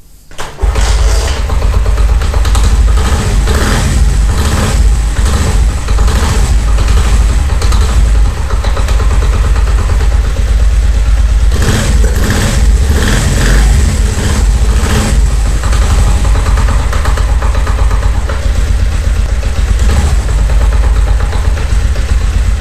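Honda CD 70 single-cylinder four-stroke engine starting about half a second in and then idling, with a rattling 'thak thak' knock. The knock comes from play between the clutch basket and the clutch plates when the clutch is released; a certain amount of it is normal on this bike.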